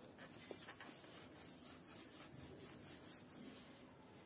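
Faint rubbing of a dried wet wipe being pulled back and forth through a narrow gap on a bicycle to clean it.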